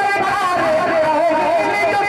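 A man singing a naat in tarannum style: long held notes with a wavering pitch, without distinct words.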